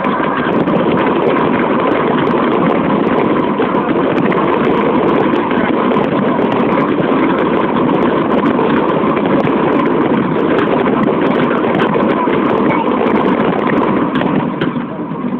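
Dense barrage of aerial firework shells bursting on top of one another, merging into a continuous crackling din studded with sharp cracks, easing a little near the end.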